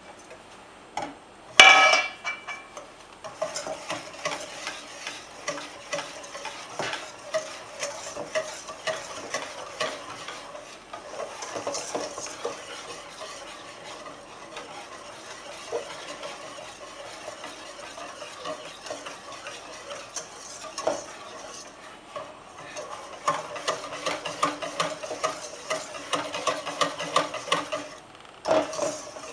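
A wire balloon whisk beats a runny mixture in a stainless steel bowl, its wires ticking rapidly against the metal. There is a single sharp metallic clang with a ringing tail about a second and a half in. Near the end the whisking gets louder, stops briefly, then starts again.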